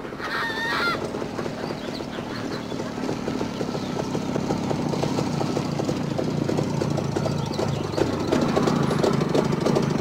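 A goose honks once near the start. Then a JAWA motorcycle's two-stroke engine is heard approaching, its running growing steadily louder as the bike draws near.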